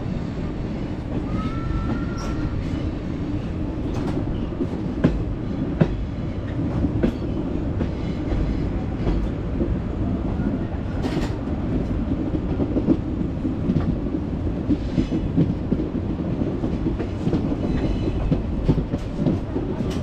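Hussain Sagar Express passenger train running on the track: a steady low rumble with scattered sharp clicks from the wheels and rails.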